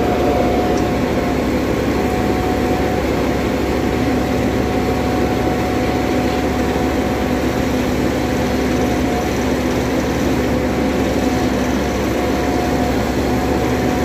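Asphalt paver's engine running steadily at close range: a loud, even drone with a constant hum.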